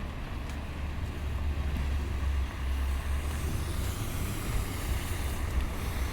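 Street traffic: a vehicle passes, its tyre hiss swelling about halfway through and then easing off, over a steady low rumble.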